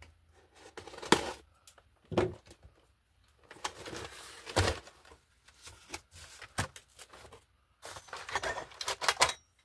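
A cardboard box being opened and unpacked: scattered knocks and thumps with stretches of rustling packaging.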